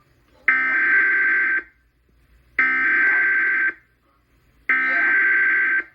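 Emergency Alert System SAME header: three bursts of digital data tones, each about a second long and about a second apart. They mark the start of an EAS alert, here a severe thunderstorm warning.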